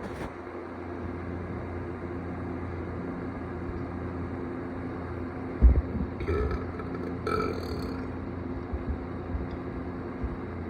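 A person burping: one loud, low burp a little past halfway, then two shorter ones about a second apart, over a steady low background hum.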